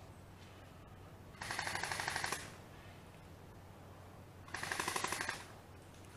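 Airsoft gun firing two rapid full-auto bursts, each about a second long, a few seconds apart.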